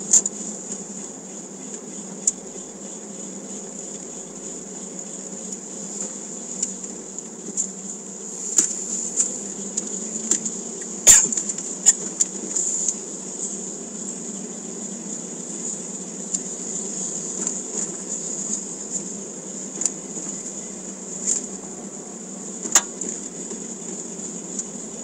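Toyota MR2 Spyder's mid-mounted four-cylinder engine and tyres giving a low, steady drone while the car rolls slowly at about 10 to 14 mph, under a steady high-pitched buzz. A few sharp knocks stand out, the loudest about eleven seconds in.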